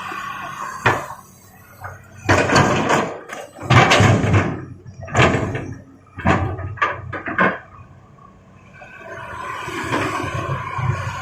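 Large rocks crashing and clattering into a dump truck's steel bed as an excavator unloads its bucket, in several bursts. Near the end the diesel engine's low drone builds up.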